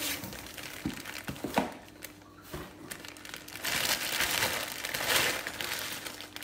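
Clear plastic wrapping crinkling as a wrapped bag is handled and lifted from a cardboard box. There are two light knocks in the first two seconds, a quieter moment, then louder, busier crinkling from about four seconds in.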